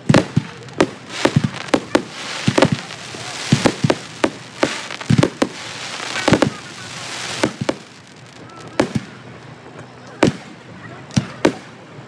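Fireworks display: aerial shells bursting overhead in a series of sharp bangs at irregular intervals, some coming in quick clusters, with crackle and rumble between them.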